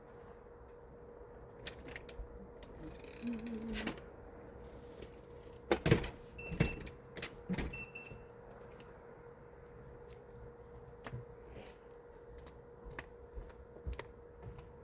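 Scattered clicks and taps of small tools and parts being handled on a soldering workbench, busiest and loudest about six to eight seconds in, over a steady hum.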